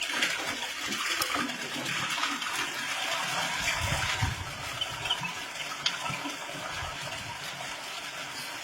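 Water gushing and splashing steadily as it pours out after being drawn up from a well.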